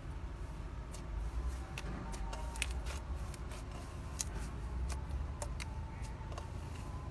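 Thick white slime being squeezed and kneaded by hand, giving off irregular small pops and clicks as air pockets in it burst, over a steady low hum.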